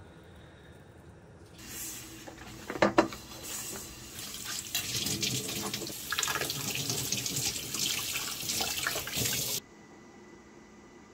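Kitchen tap running onto a stainless steel frying pan being rinsed in the sink, the water splashing off the metal. A couple of sharp knocks come about three seconds in, and the water stops abruptly near the end.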